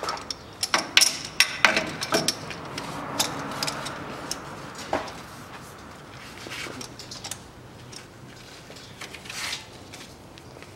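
Metal ratchet clicking and tool clinks as a claw-type oil filter wrench on a ratchet is fitted to a spin-on oil filter and worked to loosen it. The clicks are densest in the first couple of seconds and then thin out to a few scattered ones.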